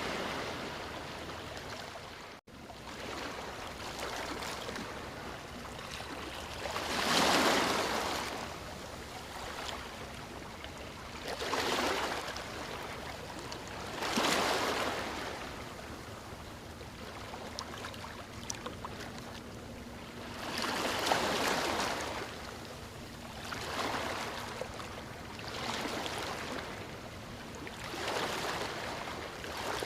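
Waves breaking on a beach: a steady wash of surf with a louder surge every few seconds as each wave breaks and washes up, swelling and fading. The sound cuts out for an instant about two seconds in.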